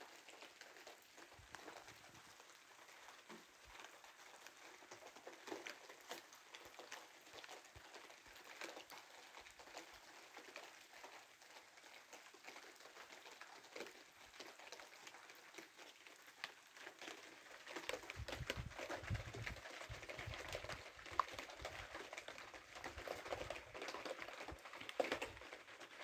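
Rain falling as a dense patter of drops. It grows louder about two-thirds of the way through, with a low rumble added underneath.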